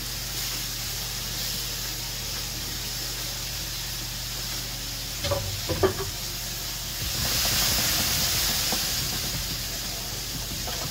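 Sliced mushrooms sizzling in oil in a nonstick frying pan. About five seconds in there are a few light clicks and taps as sliced shallots go into the pan, and then the sizzle grows louder for a few seconds.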